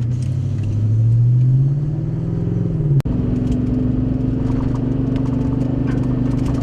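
Vehicle engine accelerating, its pitch rising steadily for about three seconds. After a sharp click and a momentary dropout, it settles into a steady drone.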